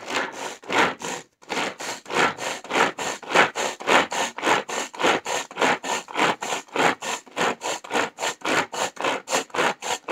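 Pull-string manual vegetable chopper chopping onion: the cord is pulled about three or four times a second, and each pull gives a short whirr of the blades spinning inside the plastic bowl, with one brief pause about a second in.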